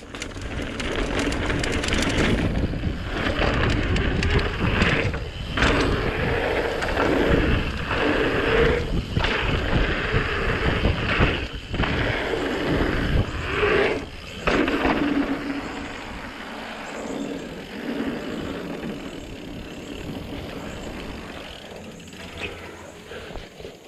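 Mountain bike's knobby tyres rolling fast over a packed dirt trail, a steady rushing noise with a few brief dips, easing off and getting quieter about two-thirds of the way through.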